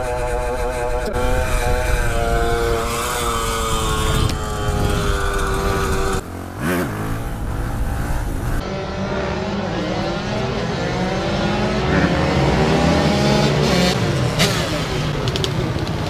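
Small motard motorcycle engine running at speed, its pitch sinking slowly over the first six seconds, with rushing wind noise underneath. After an abrupt cut about six seconds in, the engine pitch climbs sharply and then rises and falls as the throttle is worked.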